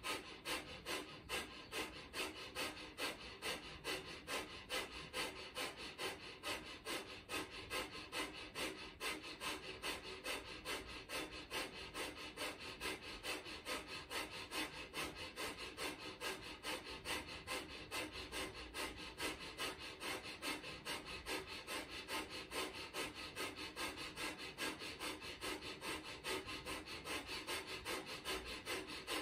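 Kundalini breath of fire: rapid, forceful breathing in and out through the nose, pumped by the diaphragm, in a steady rhythm of about two and a half breaths a second. The nasal breathing sounds like someone sawing wood.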